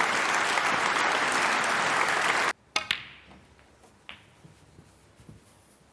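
Audience applauding, cut off suddenly about two and a half seconds in, followed by two sharp clicks over a quiet background.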